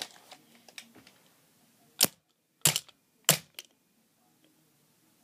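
Three sharp cracks from a shotgun-style BB gun being fired at an iPod shuffle, the first about two seconds in and the others following at intervals of roughly two-thirds of a second.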